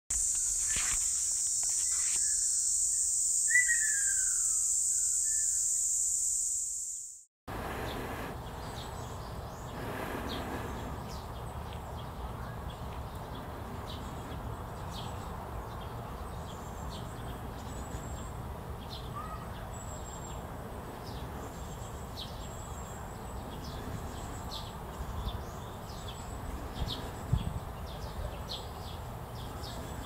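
Japanese tit fledgling giving repeated short, high, thin begging calls, more frequent toward the end, over a steady low background rumble. It is calling for food from its parent. Before that, a few seconds of a steady high buzz with one bird call cut off sharply, and a brief knock comes near the end.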